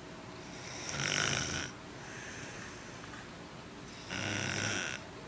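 A person snoring, two snores about three seconds apart, each a low buzz with a rasp that sounds kinda like a fishing reel.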